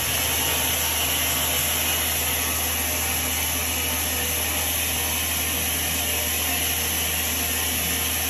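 Spillrite pneumatic air vacuum running in reverse, pumping fluid out through its hose into a bucket: a steady, loud rushing hiss of air and liquid that comes on suddenly at the outset.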